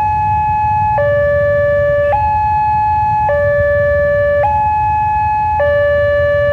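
Wantech railway level-crossing warning alarm sounding its electronic two-tone signal, alternating evenly between a higher and a lower tone about once a second. The alarm signals that the crossing is closed for an approaching train. A low rumble of waiting traffic lies underneath.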